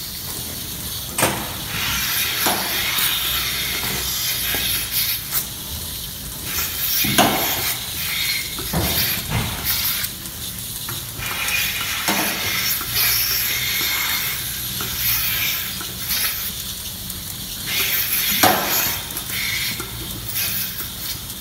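Milking-parlour vacuum milking units hissing steadily as teat cups are attached to the cows' teats, with a few sharp knocks of the clusters and steel fittings.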